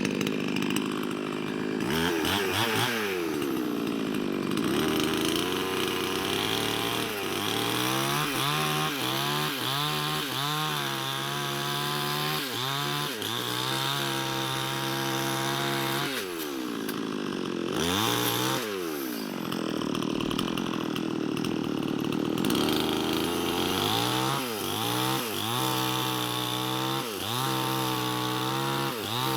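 Chainsaw running throughout, its engine pitch rising and falling again and again as it is revved and pulled down under load while cutting wood.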